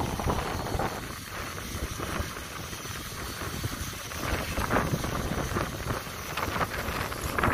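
Wind buffeting the microphone, rising and falling in irregular gusts.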